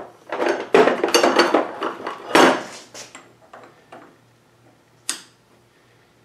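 Steel lathe parts clinking and rattling as they are handled, while the compound hand wheel of a South Bend 13-inch lathe is fitted onto its feed screw: dense clatter for the first three seconds, then a few light clicks and one sharp metallic click about five seconds in.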